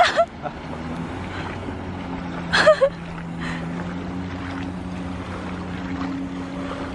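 Jet ski engine droning steadily as it cruises past, heard across open water, with a short loud call from a voice about two and a half seconds in.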